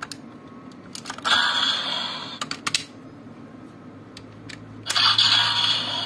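Plastic clicks and snaps as raise buckles are pulled out of and slotted into the Bandai DX Desire Driver toy belt, with two longer bursts of hissing noise, about a second in and again near the end.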